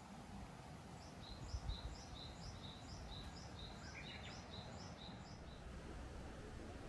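A small songbird singing a quick run of repeated high two-note phrases, about three a second, starting about a second in and stopping a little after halfway. Underneath runs a steady low outdoor rumble, with a brief low thump about a second and a half in.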